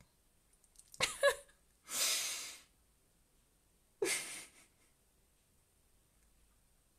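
A woman's stifled laughter: a short gasping laugh about a second in, a breathy rush of air blown out through the nose and mouth, then another gasping laugh about four seconds in.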